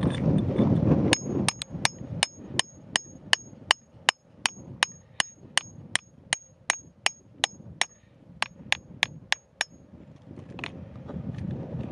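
Rapid, even metallic hammer taps, about three a second, each with a short high ring, pausing briefly once before a last handful of taps. A rough scraping of a metal tool in gravelly soil comes before the taps and again near the end.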